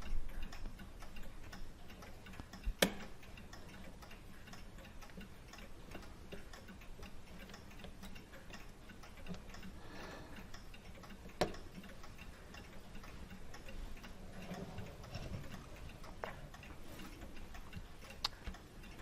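A clock ticking steadily, with a few sharp metallic clicks from small tools on a Hermle clock movement as the control cam's set screw is loosened and the cam taken off.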